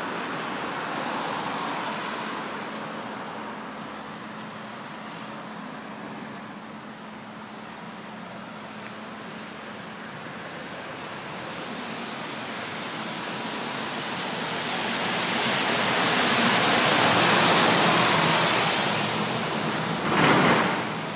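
Road traffic passing close by: a steady rush of tyre and engine noise that swells to a peak about two-thirds of the way through and fades, then a short louder rush near the end.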